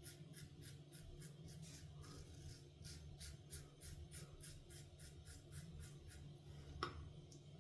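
Adjustable safety razor scraping through lathered stubble in short, quick strokes, about four a second, faint. One sharper click near the end.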